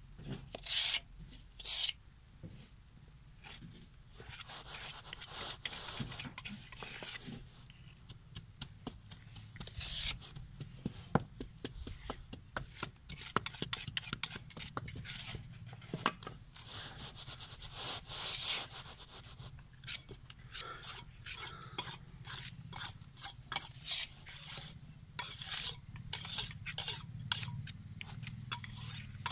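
Gritty wet concrete mix being pressed, scraped and rubbed into a metal mould by gloved hand and a hand tamper: rough scraping with many small clicks and taps of grit and tool on metal, coming thicker in the second half.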